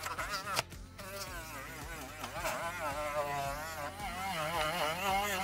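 Rotary tool with a grey buffing wheel running at high speed against a grey resin SLA print, a high whine wavering up and down in pitch. About half a second in it briefly drops out and picks back up, the small sputters and stops the tool makes as a safety feature.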